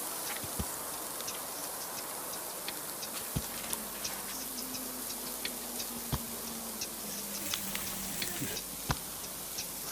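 Wood fire crackling: a steady hiss dotted with small irregular clicks, and a few louder sharp pops about every three seconds.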